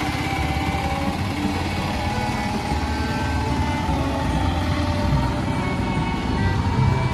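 Steady outdoor street noise with a motor vehicle's engine running: a continuous low rumble under a dense, even background bustle.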